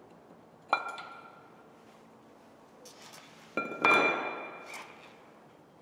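Steel engine flywheel clanking twice with a bell-like metallic ring, a shorter clank about a second in and a louder one about three and a half seconds in that rings on for about a second, as it is handled and set down on a concrete floor.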